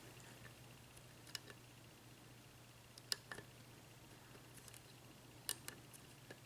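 Faint, scattered clicks of a lock pick and tension wrench working the pins of a Yale 6-pin mortice lock cylinder during single-pin picking, a few isolated ticks a second or two apart.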